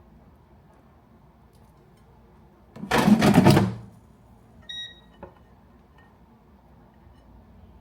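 A loud clattering, rattling noise lasting about a second, then a short electronic beep from a household appliance and a soft click.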